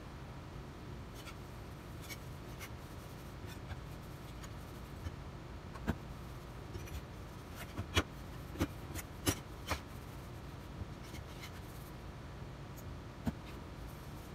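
Cloth rubbing over a metal compass plane, then the plane being handled on a wooden workbench with light metal clicks and clinks as its parts are fitted. A handful of sharper clicks come in a cluster around the middle, with single ones a little before and near the end.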